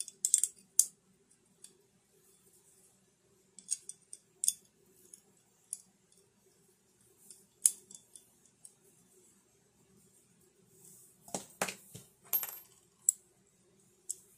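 Scattered clicks and metallic clinks of a microphone-arm adapter's bolt and knob being worked loose by hand, with small metal parts knocking together, the loudest cluster about three quarters of the way through. A faint steady low hum runs underneath.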